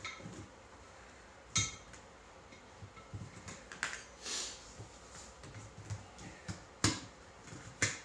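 Scattered sharp clicks and knocks of tire-mounting tools, plastic rim savers and a tire iron, handled against an ATV tire and rim while the bead is worked on. The three loudest clicks come about one and a half seconds in and twice near the end, with a brief rustle midway.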